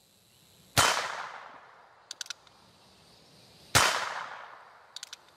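Two shots from a Ruger Single-Six .22 Magnum single-action revolver, about three seconds apart, each trailing off in echo. A quick run of light clicks follows each shot as the hammer is cocked again.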